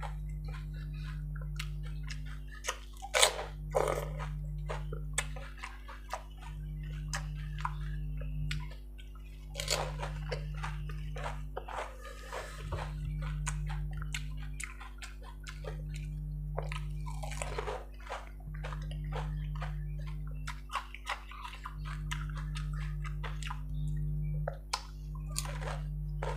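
Close-up eating of pani puri (golgappa): crisp hollow puri shells crunching and crackling in the mouth, with wet chewing and slurping of the spiced water, and drips as puris are lifted from the water bowl. A few bites stand out louder, over a steady low hum.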